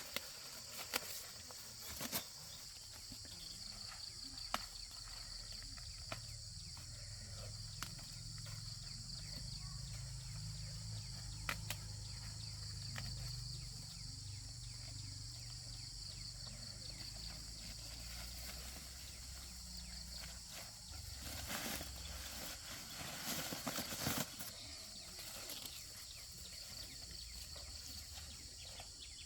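Insects chirping steadily in a high-pitched chorus, with scattered clicks and rustles and a low rumble through the middle.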